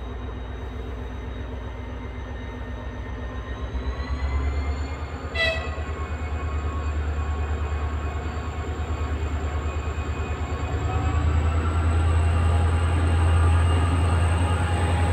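M62M 'Gagarin' diesel locomotive pulling away with a train. Its engine drones deep and steady, opening up about four seconds in and again near the end, with a high whine that rises each time. A brief sharp pitched sound comes about five seconds in.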